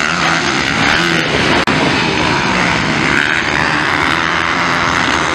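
Several motocross bikes' engines revving hard as they race past, the pitch rising and falling with the throttle.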